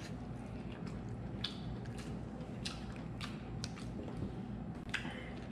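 Close eating sounds: chewing and fingers working rice and fried fish on a plate, with a scatter of light clicks from tableware.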